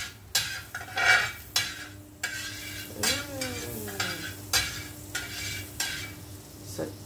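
Butter melting and sizzling in a hot flat frying pan, with a metal spatula scraping and spreading it across the pan in short repeated strokes, about two a second.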